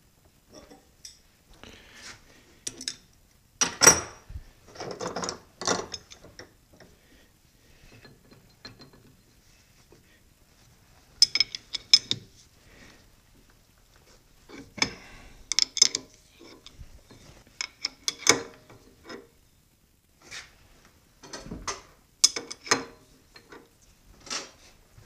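Metal clinks and clatter from change gears and hand tools being handled while the gear train at the end of a South Bend 13-inch lathe headstock is fitted back together. The clinks come in irregular clusters with short quiet gaps.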